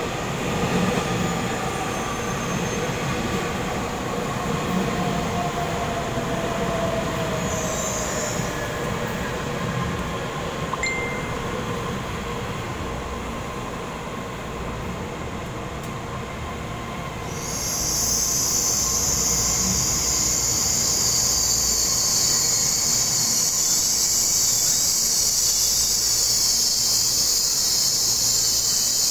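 Taiwan Railway EMU3000 electric multiple unit running into an underground station platform, its whine falling in pitch as it slows. About two-thirds of the way through, a loud, steady high hiss sets in over the running noise.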